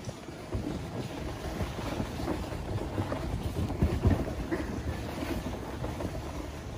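Rough scraping rumble of a sled dragged over packed snow by a tow lift, with wind buffeting the microphone and a few louder bumps about four seconds in.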